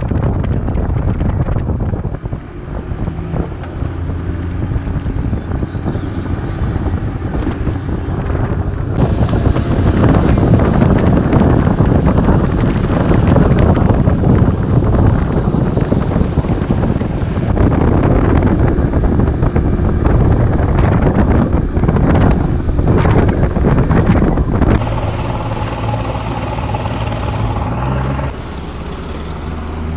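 Bass boat's outboard motor running at speed, with wind buffeting the microphone. About 28 seconds in the motor drops back and runs quieter as the boat slows.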